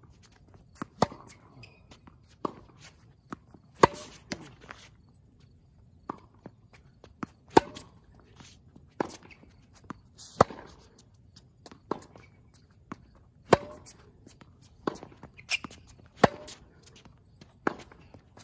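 Tennis rally on a hard court: sharp pops of rackets striking the ball, with fainter hits and bounces from the far end of the court between them, about every second and a half.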